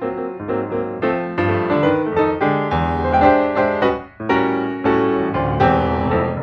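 Background piano music, a run of struck notes over a bass line, with a momentary dip about four seconds in.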